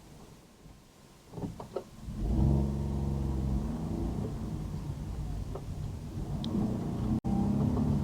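Car engine speeding up, setting off from quiet about two seconds in and then running on under load. The sound cuts out for an instant near the end.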